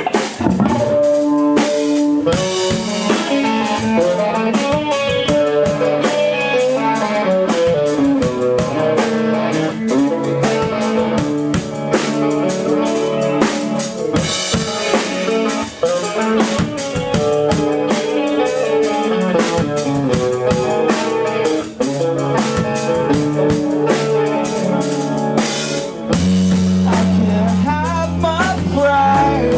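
A rock band playing live, with a full drum kit (snare, rimshots and bass drum) driving a steady beat under electric guitar and bass, and no singing.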